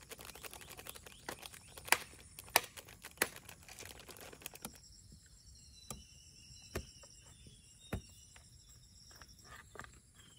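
Crinkling and crackling of a plastic spice packet being handled and torn open, with a few sharp louder snaps. About halfway through it gives way to a steady high insect trill, with a few soft clicks.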